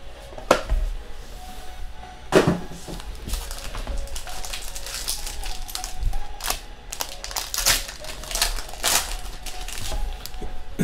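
A foil-wrapped trading card pack crinkling and crackling as it is handled and opened, followed by a stack of cards being flicked through by hand, with a run of irregular clicks and snaps.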